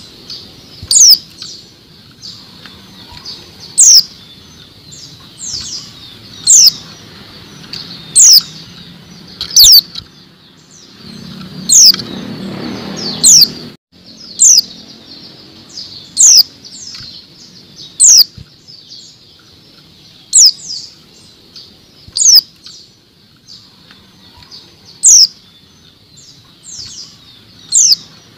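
Female white-eye (pleci) giving single sharp, high call notes that sweep downward, repeated about every two seconds: the female call used to set male white-eyes singing. Around the middle, a low rustle runs under the calls for a couple of seconds and stops abruptly.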